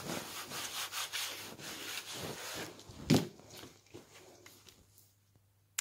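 Foil-covered baren rubbed quickly back and forth over kozo paper on a wax-and-pigment plate, burnishing the paper to pull the print: a dense run of dry rubbing strokes that stops about three seconds in with a single loud knock, followed by a few faint ticks.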